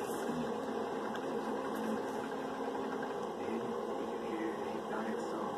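Steady background room noise, an even hiss with a faint low hum and no distinct events.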